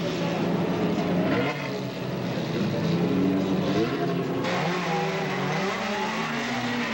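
Several racing saloon car engines running and revving, their pitch rising and falling as they change speed. The sound changes abruptly about four and a half seconds in.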